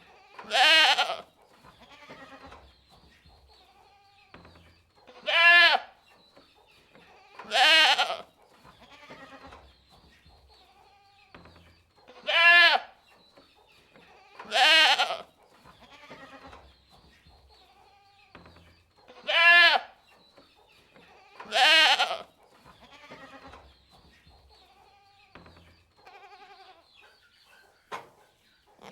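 Goats bleating: loud, quavering bleats, each under a second long, coming in pairs about two seconds apart, the pattern repeating roughly every seven seconds, with fainter bleats in between.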